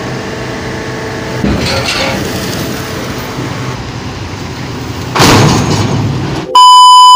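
A motor running steadily while a sugarcane trolley is tipped on a mill's hydraulic tipper ramp. About five seconds in comes a loud rushing crash as the cane load slides off. Near the end a loud, steady electronic beep tone cuts in.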